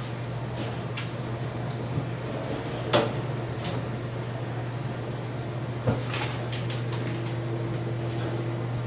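A white plastic trash bag is handled and lifted out of a kitchen bin: a few light clicks, then two sharp knocks about three and six seconds in. A steady low hum runs underneath.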